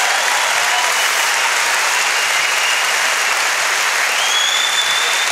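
Live audience applauding steadily after a punchline, with a high whistle rising and held near the end.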